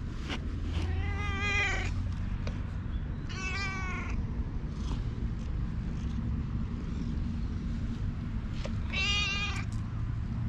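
A cat meowing three times, each meow under a second long with a wavering pitch: about a second in, again at about three and a half seconds, and once more near the end.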